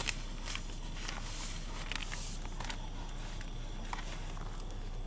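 Newspapers being handled and assembled: newsprint rustling, with scattered light clicks and taps and a longer rustle a second or so in, over a steady low hum.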